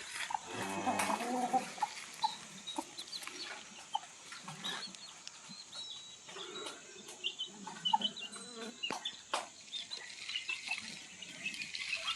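Parrot Beak Aseel chickens clucking and calling, with a longer call about a second in, many short high chirps, and scattered sharp clicks.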